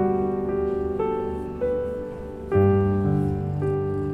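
Slow solo piano music: notes and chords struck about once a second and left to fade.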